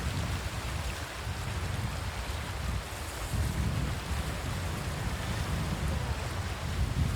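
Sea waves washing ashore in a steady rush of surf, with wind buffeting the microphone in uneven low rumbling gusts.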